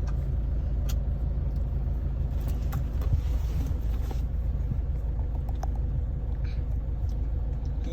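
Steady low rumble of a car, with a few faint clicks.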